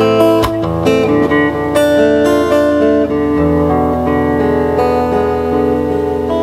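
Solo acoustic guitar playing the intro of a song: chords strummed a few times in the first three seconds, then left to ring and change slowly.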